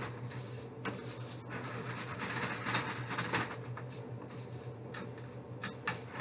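Wooden spoon stirring dry rice and thin pasta pieces browning in a pan: a scratchy rustle with irregular light scrapes and clicks, over a steady low hum.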